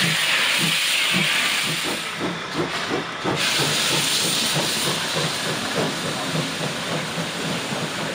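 Steam locomotive pulling away with its train: a loud, steady steam hiss over a regular low beat that gets gradually quicker. The hiss dips for about a second and comes back as the coaches roll past.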